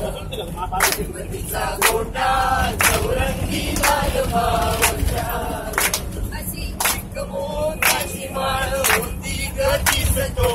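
A group of bus passengers singing a Marathi song to Ganpati together in unison, male and female voices, with hand claps keeping time about once a second, over the low rumble of the bus.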